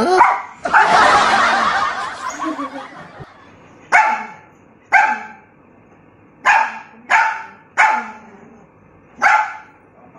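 Mini Pomeranian puppy barking: about seven short, sharp barks, spaced out, with a loud hiss lasting about two seconds near the start.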